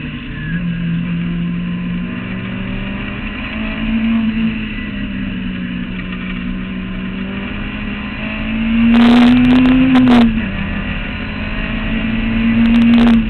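Clubman sports racing car's engine running at speed, heard from the open cockpit. Its note climbs under acceleration twice, about two-thirds of the way in and again near the end, getting louder each time and then cutting off sharply.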